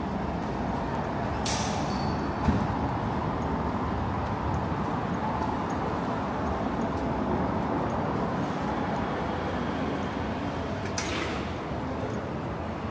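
Street traffic noise running steadily, with two short sharp hisses, about a second and a half in and again near the end, and a single knock about two and a half seconds in.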